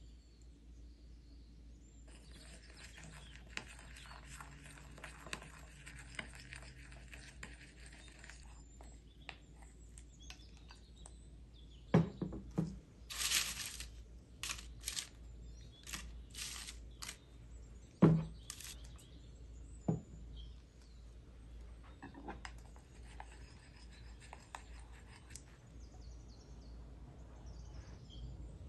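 Hands-on kitchen sounds: a wooden spoon scraping and stirring a spice dressing in a ceramic bowl, then crisp rustling of toasted pita chips on parchment paper. Several sharp knocks of spoon or dish on a hard surface come in the middle.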